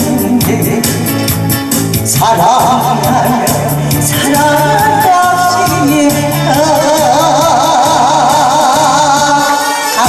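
A woman sings a Korean trot song into a microphone over a backing track played through a PA speaker. The backing has a steady beat. The voice comes in about two seconds in and holds long notes with a wide vibrato near the end.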